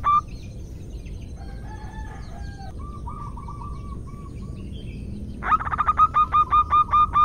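Zebra dove (perkutut) calling: after a quiet stretch with only faint calls of other birds over a low hum, a quick burst of notes about five seconds in settles into a steady run of short clipped notes, about four a second. The call is presented as a female calling a male to mate.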